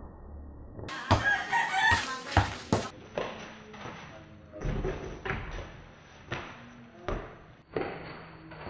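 A rooster crowing about a second in, with thuds from a basketball bouncing on packed dirt and players moving around it.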